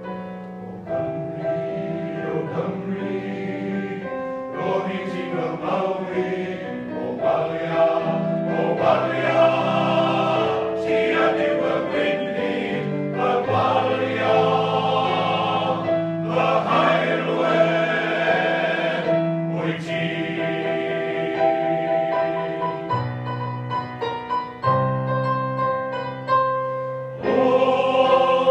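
Male voice choir singing a Welsh song in full harmony, with a sparser passage a few seconds before the end before the full choir returns.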